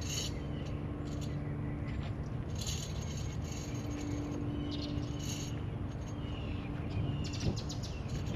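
Metal pulleys and rigging hardware clinking and rattling in short, irregular bursts as rope is threaded through them, over a steady low hum.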